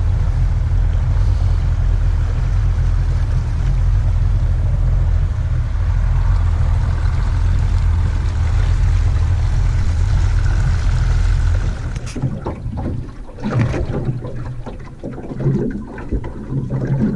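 Small boat's outboard motor running steadily under way, with wind and water noise over it. About twelve seconds in the motor's drone stops abruptly, leaving uneven knocks and water noise.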